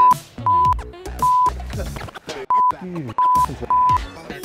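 Censor bleeps: a steady single-pitch beep sounds about six times in quick succession, each short, cutting across brief snatches of a man's speech.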